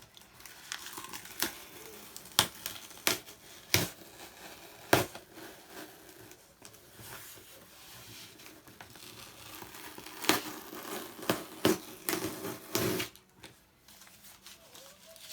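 Cardboard shipping box being handled and its label and tape torn away: paper and tape crinkling, with a string of sharp rips and knocks, busiest from about ten seconds in.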